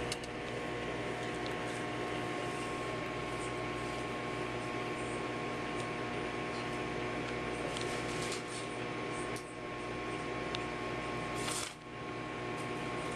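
Microwave oven running: a steady electrical hum with a few faint clicks.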